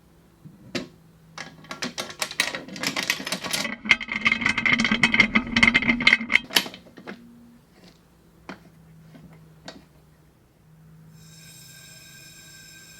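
Resin pressure pot being closed up and charged: a quick run of metallic clicks and clatter with a rush of air hiss, then a few scattered clicks.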